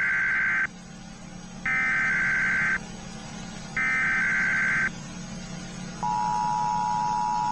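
Emergency Alert System tones: three SAME header data bursts of about a second each, a second apart, then the steady two-tone EAS attention signal begins about six seconds in.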